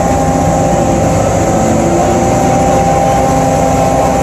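Carnival swing ride's drive machinery running under load as the gondolas start to swing: a steady mechanical drone with a constant high whine over it.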